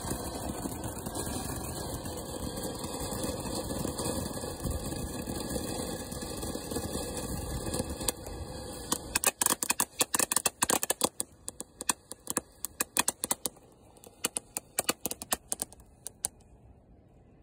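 A ground fountain firework hissing steadily as it sprays sparks for about nine seconds, then switching to a rapid, irregular crackling of many small pops that dies out near the end.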